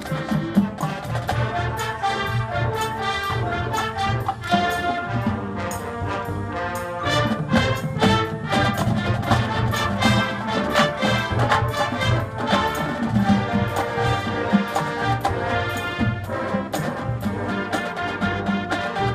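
Music led by brass instruments such as trombones and trumpets, with drums keeping a steady beat.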